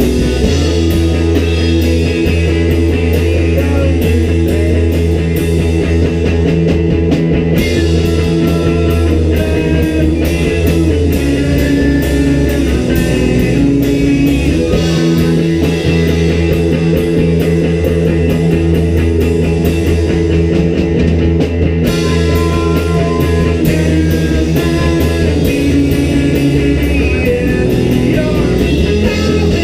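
Rock band playing live: electric guitars, keyboard and drum kit together in a steady, continuous song.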